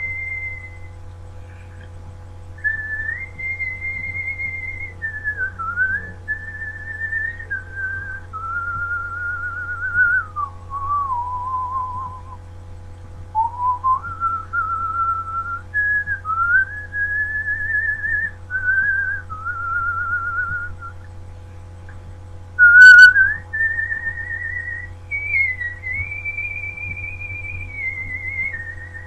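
A person whistling a slow melody: clear single notes, held and stepping up and down with some slides between pitches. A steady low electrical hum runs underneath. One brief, shrill, much louder squeak comes about two-thirds of the way through.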